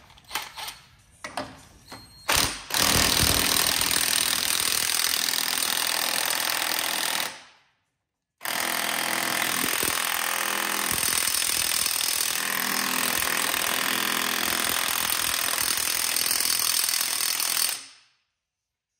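Bauer 20V cordless impact wrench hammering on the flywheel gland nut of an air-cooled VW Beetle engine. After a few light clicks it runs in two long runs of about five and nine seconds with a short break between. The gland nut does not break loose.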